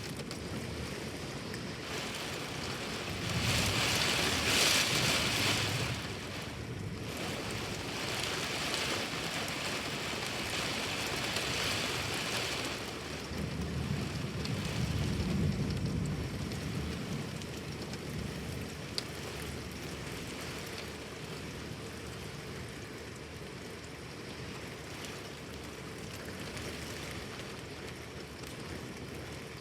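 Heavy rain pouring during a thunderstorm, swelling in two louder surges in the first half, with a low rumble about halfway through.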